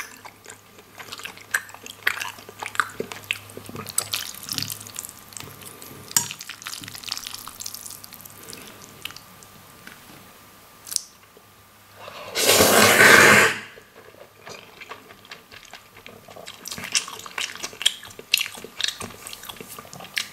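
Someone eating black bean noodles (jjajangmyeon): wet chewing and mouth clicks throughout, with one loud slurp of noodles lasting about a second just past the middle.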